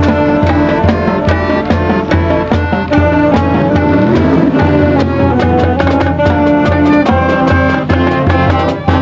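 Marching band playing a tune: brass holding and changing notes over a steady drum beat, with a rising and falling glide in pitch near the middle.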